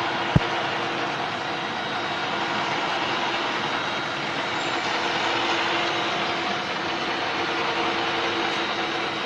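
An industrial machine running steadily, a continuous mechanical noise with a few faint held tones, and a single sharp click about half a second in.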